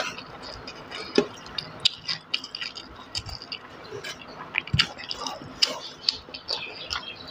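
Close-up hand-eating sounds: fingers squishing and mixing rice and curry on a steel plate, with wet mouth smacks as the food is chewed, heard as a string of irregular small clicks and squishes.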